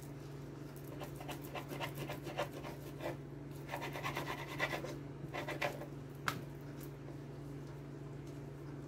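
Knife sawing through thick-cut bacon on a cutting board: runs of quick, scratchy strokes, with a single sharp tick about six seconds in.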